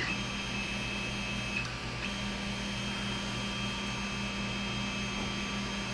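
Creality Ender 5 Plus 3D printer running at the start of a print: a steady electronic whine over a low hum, which drops out briefly and resumes about two seconds in.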